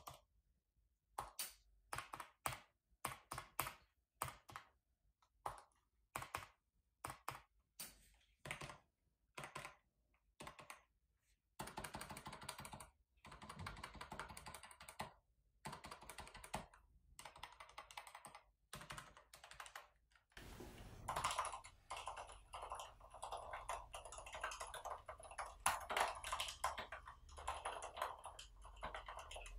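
Typing on a Mars Pro Vesta mechanical keyboard with Cherry MX Silent Red (linear, dampened) switches, giving soft, muted key presses. It starts with short runs of keystrokes separated by pauses and moves into steady continuous typing. About two-thirds of the way in, a faint steady background hiss comes in under the typing.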